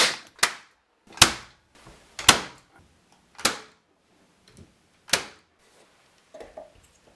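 Nails being driven into the glued joints of a wooden box: six sharp strikes at uneven intervals, two close together at the start and the last about five seconds in.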